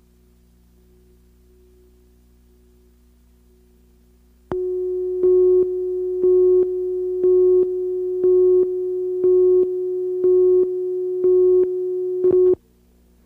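Broadcast countdown leader tone on a program slate: a steady electronic tone comes on about four and a half seconds in, with a louder beep about once a second, eight in all, as the slate's numbered lights count down from 9 to 2, then cuts off sharply shortly before the end. Before it, only a faint steady hum.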